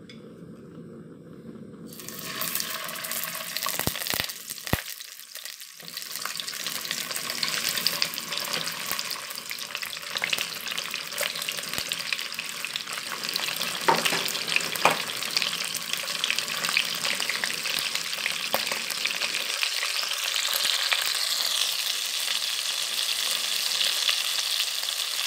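Dried salted threadfin bream frying in hot oil in a wok. The sizzle starts suddenly about two seconds in as the fish go into the oil, then runs steadily with scattered crackles and pops.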